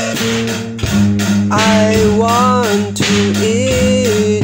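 A song with guitar and a steady beat of about four strokes a second. A gliding melody line comes in about a second and a half in.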